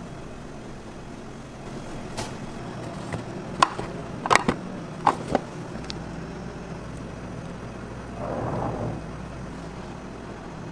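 Commercial kitchen hum with a handful of sharp metallic clinks and knocks from metal trays and utensils in the middle, then a short scraping noise near the end.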